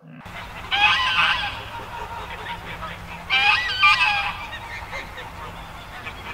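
Canada geese honking in two short bouts of several calls each, about a second in and again around three and a half seconds in.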